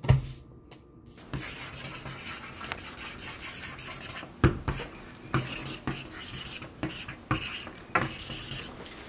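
A marker writing on a sheet of paper on a hard counter: steady scratchy rubbing, broken by sharper strokes as the letters are drawn. A single thump comes at the very start.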